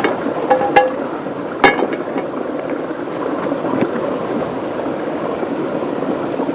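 Steady rush of rain and river water, with a few sharp clinks or knocks in the first two seconds and a thin, steady high tone running through.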